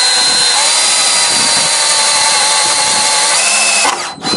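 Cordless drill running steadily against a pickup's chrome front bumper, its motor whining. It stops just before the end, then gives one short burst.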